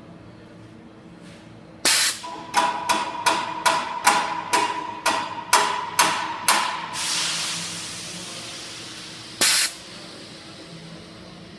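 A rapid series of about a dozen sharp metallic knocks, roughly three a second, each ringing briefly, then a fading hiss and one more short loud burst.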